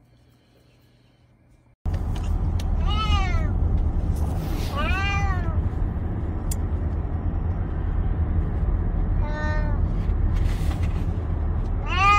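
A cat meowing four times, each call rising then falling in pitch, over the steady low rumble of a moving car heard from inside the cabin. The sounds start suddenly about two seconds in, after near silence. The cat, just discharged from hospital, is crying on the ride home.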